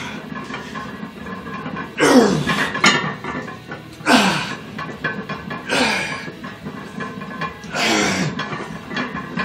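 A weightlifter grunting and exhaling forcefully on each rep of a heavy barbell back squat. The grunts come about every two seconds, each breathy and falling in pitch.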